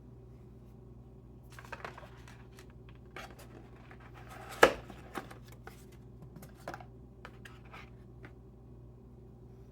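A phone and its packaging being handled during unboxing: scattered rustles, scrapes and small clicks, with one sharp click about halfway through.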